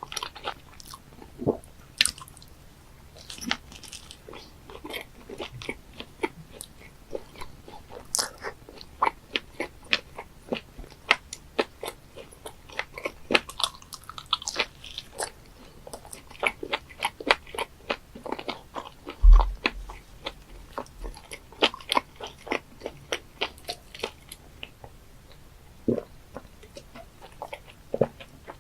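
Close-up chewing of raw live octopus pieces: a steady run of irregular wet mouth clicks and smacks. A single low thump about nineteen seconds in.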